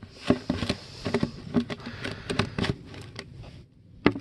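Irregular plastic knocks and scrapes as a red plastic poultry waterer is fitted together by hand, with a short lull near the end.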